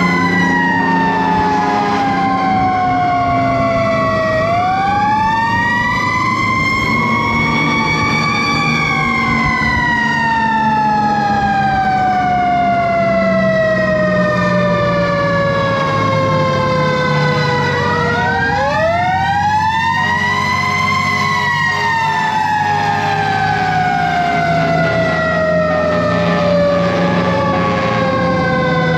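Fire engine sirens wailing: each rises quickly and falls slowly over many seconds, and at times two wails overlap. Beneath them a Detroit 8V71 diesel engine runs steadily.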